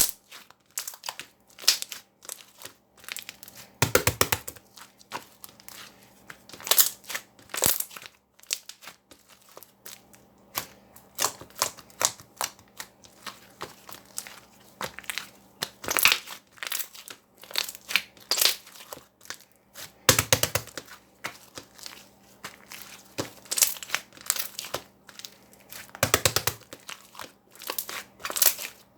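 Handmade slime being pressed and stretched by hand, giving irregular clicking, crackling pops with a few longer, louder stretches of crackling.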